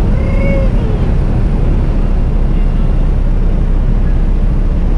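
Loud, steady drone of a small jump plane's engine heard from inside the cabin, during the take-off roll. A short vocal cry from a passenger comes about half a second in.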